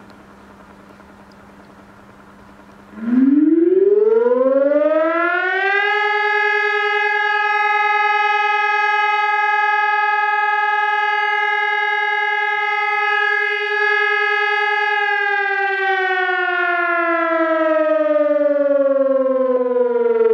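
HES 1200 electronic siren sounding. After a faint low hum, its tone rises steeply over about three seconds to a steady high pitch with strong overtones. It holds there for about nine seconds, then slowly falls in pitch.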